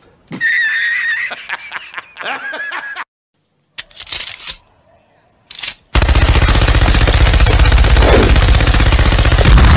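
A man laughing loudly, then a couple of short mechanical clatters, then continuous rapid machine-gun fire that starts about six seconds in and is the loudest sound.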